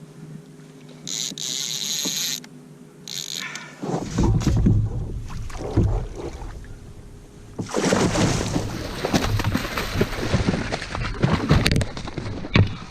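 A hooked halibut being fought alongside a kayak: splashing water and sharp knocks against the hull, with wind rumbling on the microphone. Two short hissing bursts come in the first few seconds, and the splashing is loudest in the second half.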